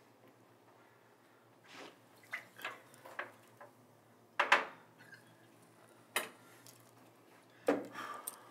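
Tableware and placemats being gathered off a glass-topped dining table: a series of separate clinks and knocks, the loudest about halfway through.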